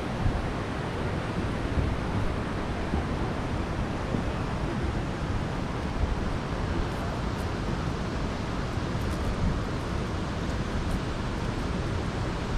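Steady outdoor rushing noise, heaviest in the low end, with no distinct events.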